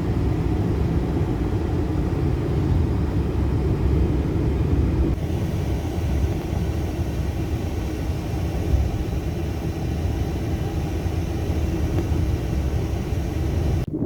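Steady low roar of strong storm wind blowing across the microphone, with no clear gusts or breaks.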